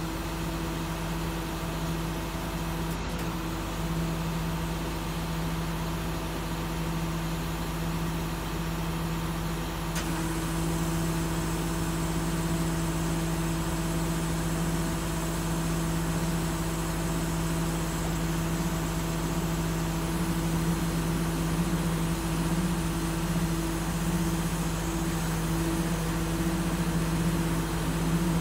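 Steady drone of a service truck's running engine and the hydraulic system powering an Auto Crane 6406H hydraulic crane as its boom raises and extends, growing slightly louder after about ten seconds.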